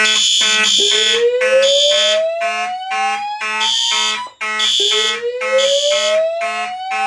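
Fire alarm sounding. A voice evacuation panel's slow whoop, a tone rising steadily over about three and a half seconds, comes twice, over a Simplex 2901-9838 mechanical horn pulsing about twice a second in march time.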